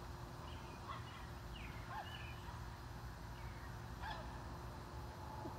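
Faint outdoor ambience: a steady low rumble with a few short, distant bird calls.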